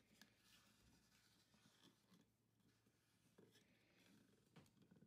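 Near silence, with a few faint, short clicks of the plastic toy hairdressing chair being turned by hand.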